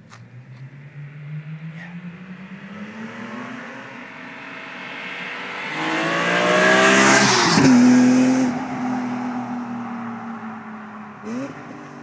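BMW E46 M3 with Supersprint race headers and an Eisenmann sport muffler accelerating toward and past the listener. Its S54 straight-six note climbs steadily in pitch and grows loud, then drops sharply as the car goes by, and holds a lower, fading note as it drives away. A short rising rev comes near the end.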